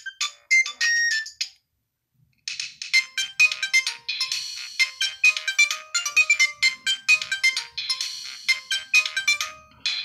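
Nokia 2608 flip phone playing ringtones through its built-in speaker. One quick electronic melody stops about one and a half seconds in. After a short silence, another ringtone starts and plays on with several notes sounding together.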